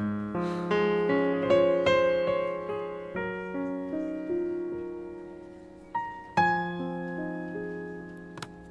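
Soft background piano music: a slow melody over chords, each note struck and left to fade.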